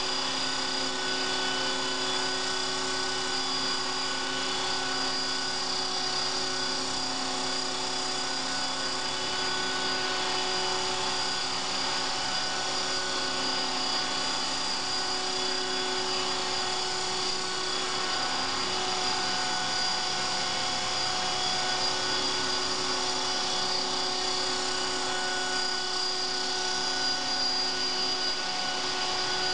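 CopterX 450 Pro electric radio-controlled helicopter hovering, its motor, drive gears and rotor blades giving a steady whine that holds one pitch throughout.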